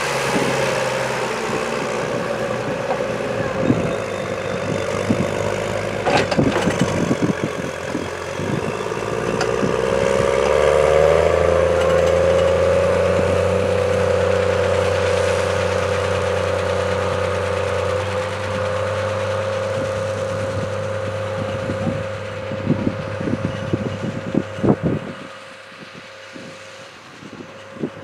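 New Holland T7060 tractor's six-cylinder diesel engine working under load while pulling a slurry tanker and injector. It revs up about ten seconds in and holds steady, then drops away near the end, with a few sharp knocks along the way.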